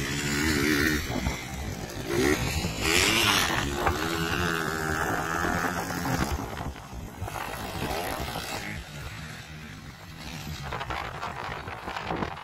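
Dirt bike engines revving up and down, the pitch rising and falling several times in the first half and fainter in the second half.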